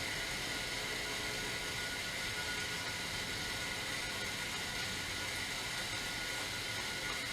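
Steady background hiss with a faint high, even hum running through it, and no distinct events.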